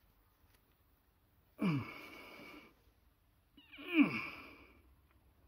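A man gives two straining vocal sighs, each falling in pitch, about one and a half and four seconds in, as he lifts the heavy lathe carriage by hand. The second is the louder.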